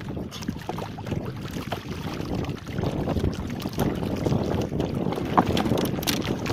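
Wind buffeting the microphone over choppy water slapping and splashing against a small wooden jukung (outrigger canoe) as it is paddled, getting a little louder about two and a half seconds in.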